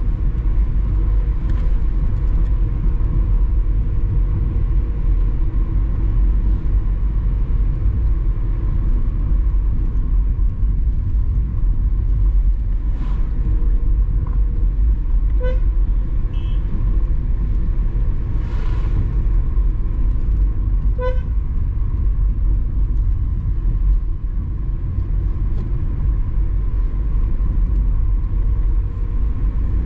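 Car driving, a steady low rumble of engine and road noise, with two short horn toots about halfway through and again a few seconds later.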